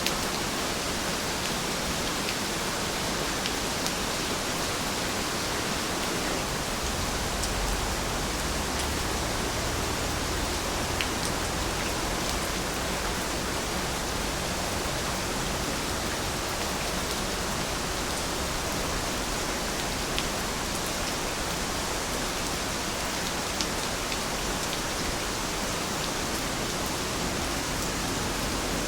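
Steady rain falling, a dense even hiss with a few faint individual drop ticks now and then.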